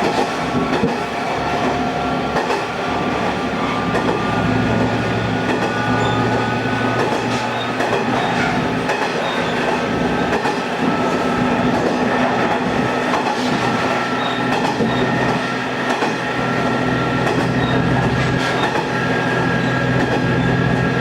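Diesel railcar running between stations, heard from inside the car: a steady engine drone, with faint clicks of the wheels over rail joints and thin high wheel squeal.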